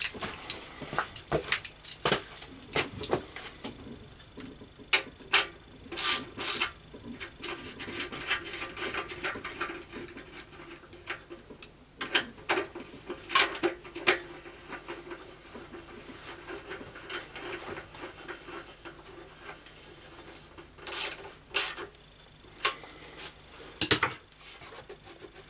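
Hand tools and metal parts clinking, tapping and scraping at irregular intervals as a motorcycle fuel tank is bolted down with washers and bolts onto its rubber mounts.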